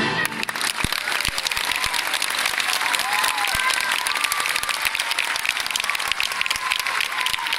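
Theatre audience applauding with dense, steady clapping just as an orchestra's final chord stops, marking the end of the piece.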